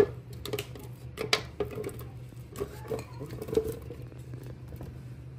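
Cut mango pieces tipped and scraped from a glass bowl into a plastic blender jar: scattered light knocks and clinks of bowl against jar and soft thuds of fruit landing, over a low steady hum.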